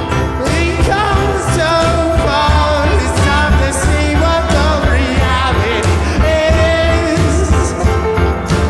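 Live band music with electric guitars, bass, drums and violin, and singing.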